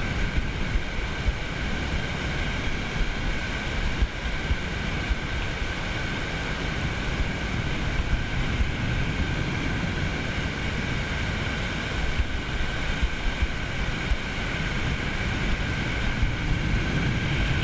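Wind buffeting the microphone with small surf waves washing onto a sandy, muddy shore. A faint steady high-pitched hum runs underneath.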